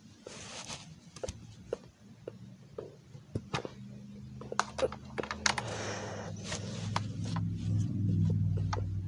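Small plastic toys clicking and knocking as they are handled. A low steady hum builds underneath from about halfway through and is loudest near the end.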